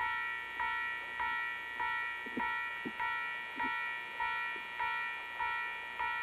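Railway warning bell ringing in a steady rhythm, a little under twice a second, each strike fading before the next: the alarm for an approaching train.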